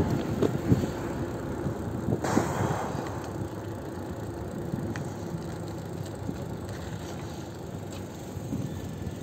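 Bicycle ride noise: a steady rush of wind and tyre noise with scattered clicks and rattles from the bike, and a brief louder rush about two seconds in.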